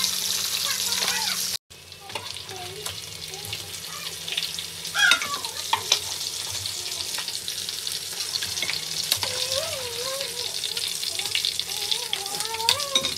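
Chicken pieces frying in hot oil in a nonstick skillet: a steady sizzle, with the scrape and clink of a metal slotted spoon turning the pieces. The sound cuts out for a moment about a second and a half in, then comes back a little quieter.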